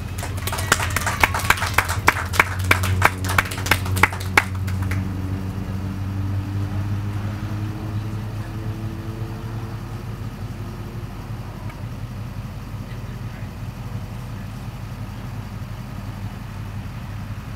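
A few people clapping sharply for about four seconds, then stopping. Under it runs a steady low engine hum, like an idling vehicle.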